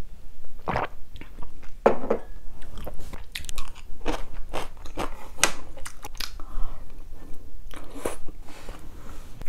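Close-miked eating sounds: a couple of sips or slurps from a small bowl, then a run of crisp crunches as kimchi is chewed.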